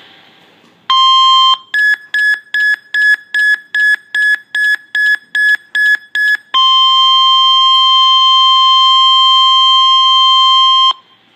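Weather radio emergency alert: a brief steady tone near 1050 Hz about a second in, then a run of about fifteen rapid electronic beeps at about three a second, then the steady 1050 Hz warning alarm tone held for about four seconds before it cuts off sharply.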